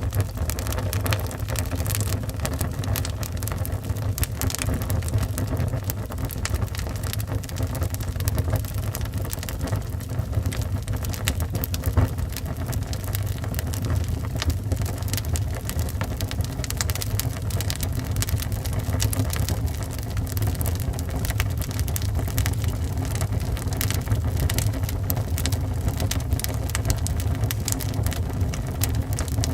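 Wood fire burning in a fireplace: a steady low rumble of flames with dense, irregular crackles and pops from the burning logs, one sharper pop about twelve seconds in.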